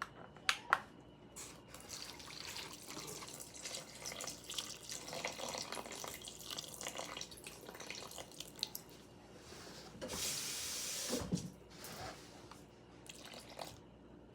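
Water from a kitchen tap running and splashing into a bowl in uneven stretches, with a stronger, steady gush for about a second around ten seconds in. This is plausibly the water being measured out for sourdough dough. A few sharp clicks come just after the start.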